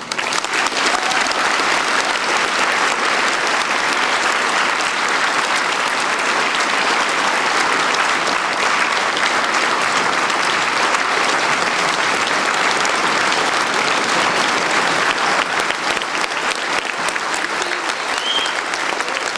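Audience applauding steadily, breaking out all at once at the end of a speech, with a brief whistle rising over it near the end.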